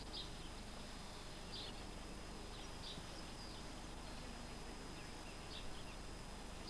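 Faint outdoor ambience: a steady hiss with short, high chirps scattered at irregular intervals, about one every second or two.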